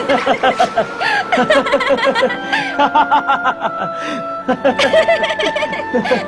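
Laughter in quick repeated peals over background music with held notes; it breaks off briefly about four and a half seconds in.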